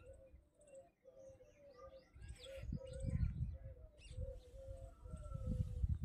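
Background birds calling: a low, nearly continuous cooing line with short chirps over it, along with uneven low rumbles that are loudest about three seconds in and again near the end.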